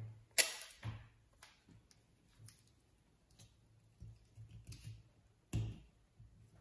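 Handling noise as a drinking straw is taped down onto a cardboard hand: scattered light clicks and taps, with a sharp click about half a second in and another louder one near the end.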